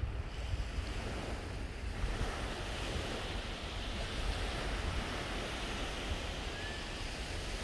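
Steady wash of surf on a beach, with light wind buffeting the microphone.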